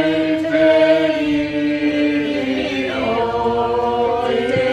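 Unaccompanied chanted singing with no instruments: long held notes that glide slowly, moving to a new note about three seconds in.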